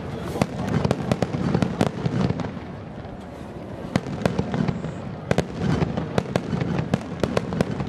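Aerial firework shells bursting one after another: a run of sharp bangs, several a second, over a continuous low rumble. The bangs thin out for a moment in the middle, then come thick again.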